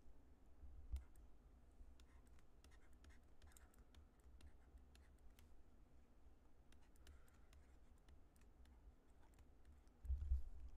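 Faint ticks and light scratching of a stylus tip on a tablet screen as numbers are handwritten, over a low hum, with a low bump near the end.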